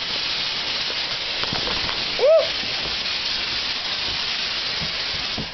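Fog machine giving out a steady hiss. About two seconds in, a short squeak rises and falls in pitch.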